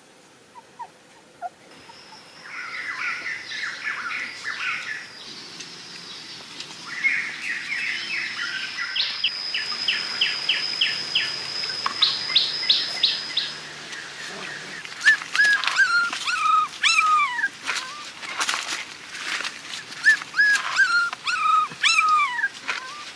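Young puppies whimpering: repeated high cries that fall in pitch, coming thick in the second half. Earlier, rapid high chirps and a steady high-pitched tone.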